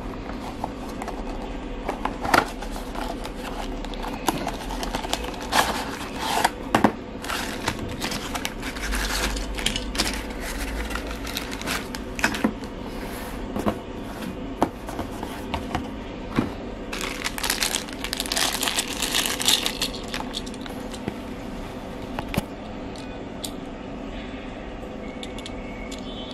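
Unboxing handling noise: cardboard box parts scraping and tapping, with many sharp clicks, and diecast toy cars in clear plastic wrappers being handled, the plastic crinkling longest about two-thirds of the way through.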